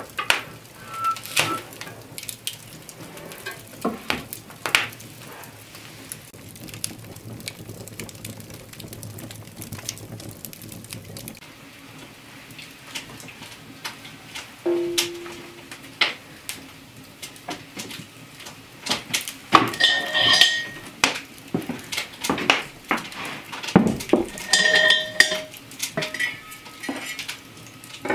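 Kitchen handling sounds: scattered knocks and clicks, then two short runs of metal clanking and ringing, about two-thirds of the way through and again near the end, as cast-iron cookware and utensils are handled.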